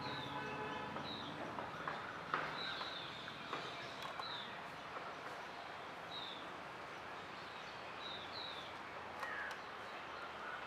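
Birds calling in the trees: a short, high chirp repeated about every second or so, with a harsher call in the first second, over a steady background hum.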